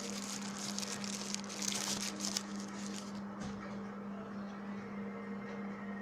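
Irregular rustling and handling noise over a steady low hum, dying away about three seconds in.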